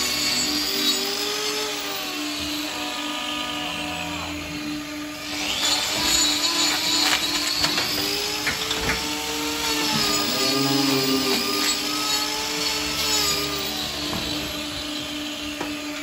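Handheld angle grinder fitted with a hoof-trimming disc cutting into a cow's hoof, its whine dropping and recovering in pitch as it bites and eases off, with scattered ticks over a steady hum.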